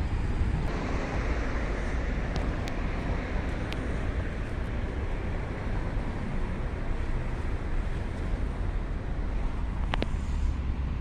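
Wind noise on the microphone: a steady, fluctuating rumbling hiss, with a short click about ten seconds in.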